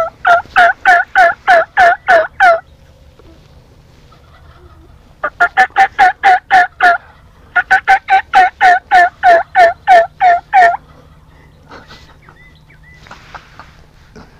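Turkey yelping: three runs of loud, evenly spaced yelps at about four a second, each note breaking from high to low, with short pauses between the runs.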